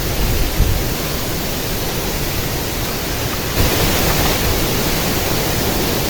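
Strong wind buffeting the microphone, a steady rushing noise with a low rumble that gusts harder about three and a half seconds in.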